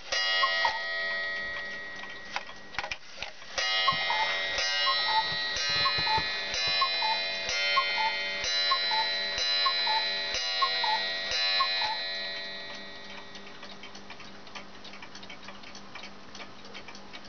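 Small cuckoo clock striking the hour: each two-note cuckoo call comes with a ringing gong strike, one at first and then, after a pause of about three seconds, a run of about nine more at roughly one a second. The clock then ticks on steadily.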